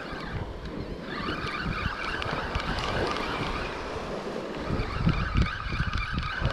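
Penn spinning reel being cranked to bring in a hooked fish, its gears whirring steadily from about a second in, over wind on the microphone and surf.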